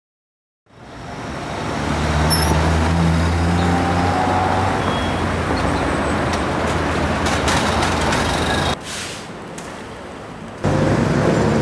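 Road traffic: a heavy vehicle's engine running steadily with a low hum amid traffic noise. It fades in about a second in, drops away for about two seconds near the end, then returns at full level.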